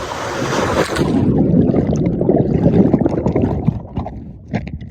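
Water splashing and sloshing close to the microphone; about a second in the sound turns suddenly muffled, leaving a low, crackling churn with scattered knocks.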